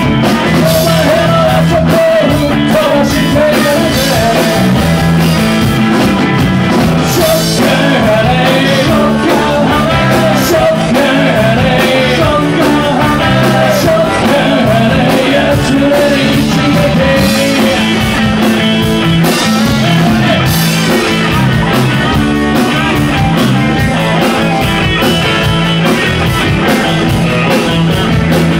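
Rock band playing live and loud: electric guitars and a drum kit, with vocals at times.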